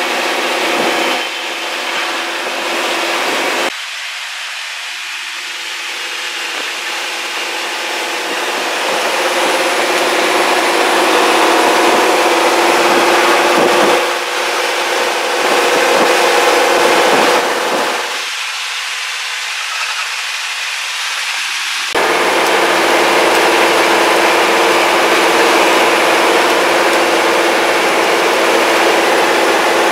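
Engine and road noise inside the cab of a fire truck on the move, a steady drone with a few held engine tones. The sound changes abruptly several times where clips are joined, the low end dropping out and coming back.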